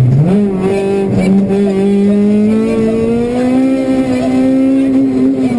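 Honda Civic Type-R rally car's four-cylinder engine under hard acceleration, heard from inside the cabin: the revs jump up right at the start, then climb slowly and steadily, easing back a little near the end.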